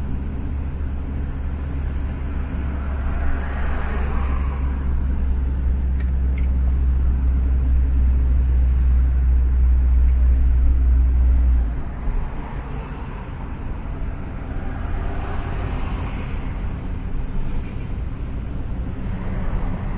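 Engine and road rumble of a moving vehicle heard from inside its cabin. The low rumble grows steadily louder, then drops suddenly just past halfway. Two swells of tyre and traffic noise come around four seconds in and again near sixteen seconds.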